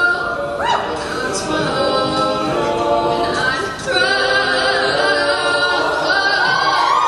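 A cappella group singing without instruments: a full choir of mixed voices holds long chords, with a female lead voice over them.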